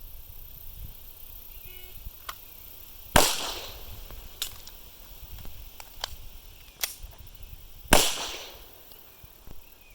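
A faint short shot-timer beep, then a 9mm Beretta 92 pistol fires one shot. Clicks and clacks of a one-handed slide-lock reload follow, and a second shot comes about four and a half seconds after the first.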